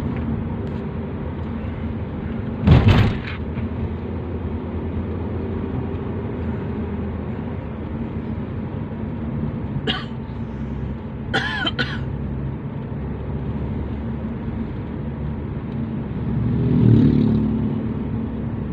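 Steady engine and road-noise drone of a moving car, heard from inside the cabin. A brief loud burst comes about three seconds in, a few short sharp sounds follow around the middle, and the drone swells for a moment near the end.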